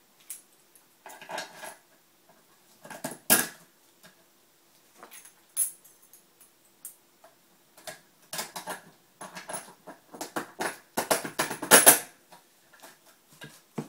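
Small steel hardware (bolts, fender washers, Nylock nuts) clinking and tapping against an aluminum angle bar as it is fitted by hand. The clicks come scattered, then in a dense run of quick metal clicks about eleven to twelve seconds in.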